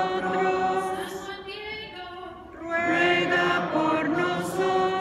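A congregation singing together in long held phrases. The singing fades about two seconds in and the next phrase starts loudly shortly after.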